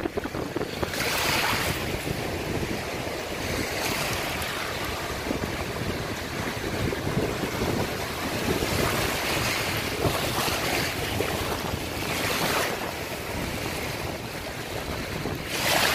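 Small sea waves washing in over a pebble shore, a surge every few seconds, with wind buffeting the microphone.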